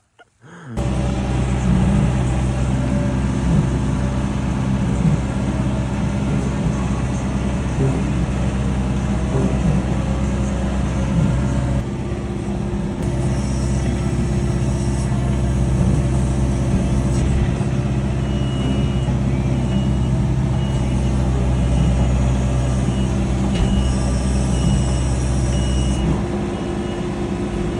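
Engine of a land-clearing machine running steadily under load, with a reversing alarm beeping at an even pace in the last third.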